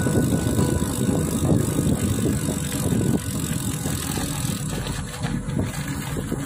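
Bicycle riding along a road: uneven wind rumble on the microphone over the sound of tyres rolling on asphalt.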